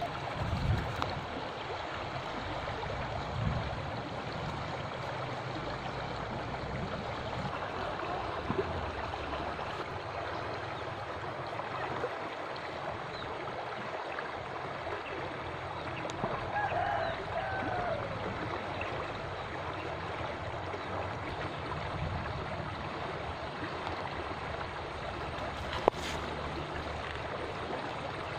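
Shallow river water running steadily over stones. A brief curving call comes about halfway through, and a single sharp click comes near the end.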